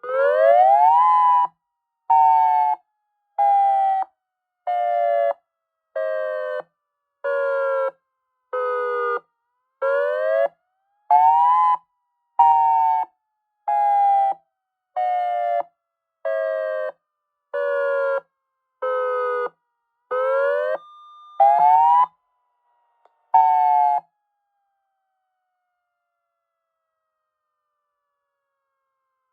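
Electronic outdoor warning siren sounding its pulsed wail: the wail tone is chopped into pulses a little over a second apart. The pitch sweeps up and then steps down from pulse to pulse over about three cycles, and the siren stops about two-thirds of the way through.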